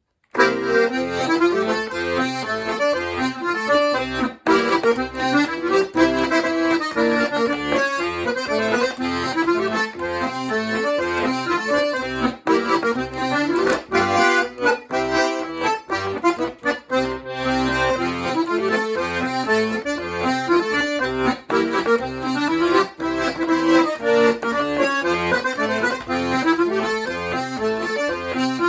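Baldoni Bartoli piano accordion played solo: a lively polka tune on the treble keyboard over a rhythmic accompaniment from the bass buttons, with a few very brief breaks in the sound.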